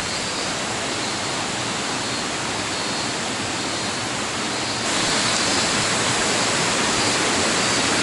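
Steady rush of a mountain stream, an even hiss with no breaks, which grows louder about five seconds in.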